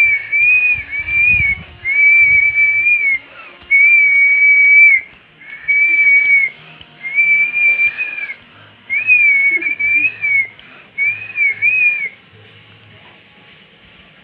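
A person whistling through the lips: about seven short, high phrases of a second or so each, some held steady and some wavering up and down, a call to the dog. The whistling stops about two seconds before the end.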